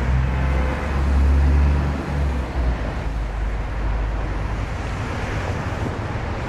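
Street traffic on wet roads: a heavy vehicle's engine drones past, loudest for the first two seconds or so, over a steady hiss of tyres on the wet street.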